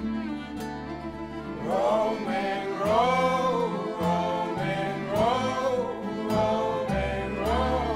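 Acoustic folk band playing live: nylon-string guitars strummed with a bowed cello and double bass holding low notes, and melodic phrases rising and falling above them.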